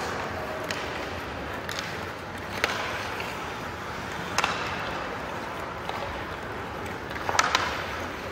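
Ice hockey play on a rink: a steady scrape and hiss of skates on the ice, with several sharp knocks of sticks and puck. The loudest is a quick pair of knocks about seven and a half seconds in.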